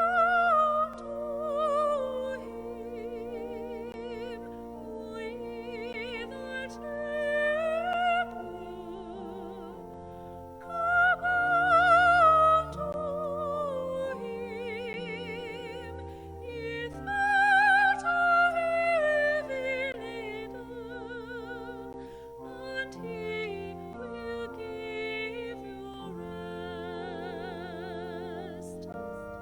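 Music: a classical-style solo voice singing with strong vibrato in long rising and falling phrases, over held accompaniment chords.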